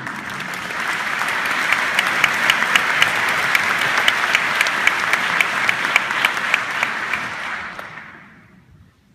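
Concert hall audience applauding, swelling over the first second or two and dying away near the end. One nearby pair of hands claps sharply, about three claps a second.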